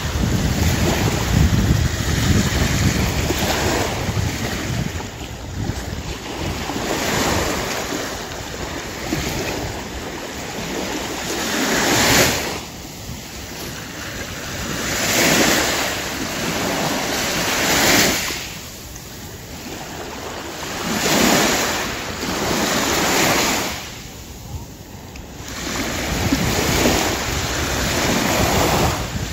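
Small sea waves washing up onto a sandy shore, the surf rushing in and falling away in a swell every few seconds.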